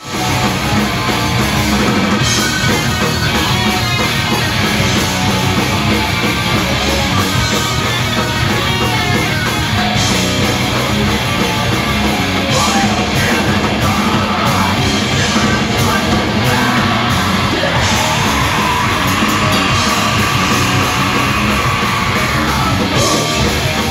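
A punk rock band playing live at full volume: distorted electric guitars, bass and a drum kit, with a singer yelling into the microphone.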